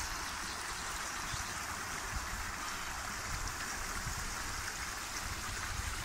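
A shallow, stony stream running over rocks and pebbles: a steady, even rush of flowing water.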